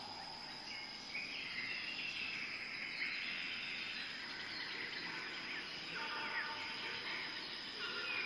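Outdoor nature ambience: a steady high-pitched insect drone, like crickets, with scattered bird calls over it.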